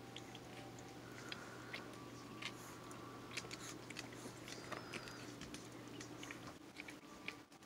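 Faint, irregular wet smacking and clicking mouth sounds from a mother dog and her newborn puppies as they nurse and are licked, with a faint high squeak near the middle.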